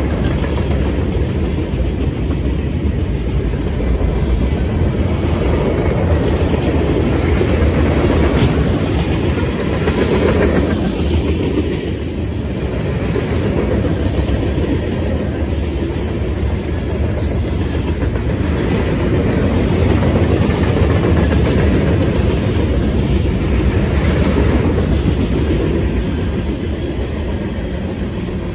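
Freight cars of a Norfolk Southern train rolling past: steel wheels running on the rails, a steady sound.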